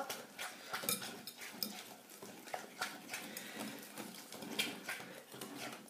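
Whisk stirring a thick shortbread dough in a glass bowl: quiet, irregular scraping and soft clicks of the wires against the glass, with the squelch of the stiff dough.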